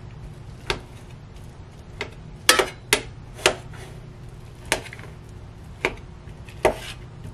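Metal spoon clinking and scraping against a stainless steel mess-kit pot while breaking up clumps of cooked rice: about eight sharp, irregular clicks.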